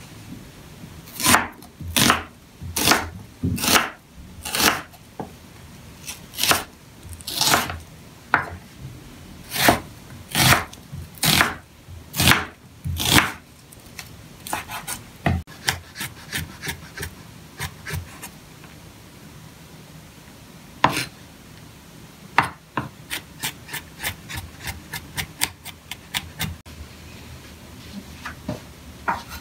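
Kitchen knife slicing an onion on a wooden chopping board: each stroke is a crisp cut ending in a knock on the board, about one a second. In the second half the cuts come lighter and quicker.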